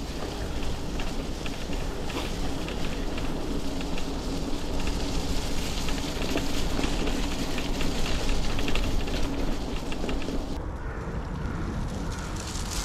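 Mountain bike tyres rolling fast over a wet, gritty gravel track strewn with leaves: a continuous gritty crackle over a low rumble of wind on the bike-mounted microphone. About ten seconds in, the sound turns duller as the high hiss drops away.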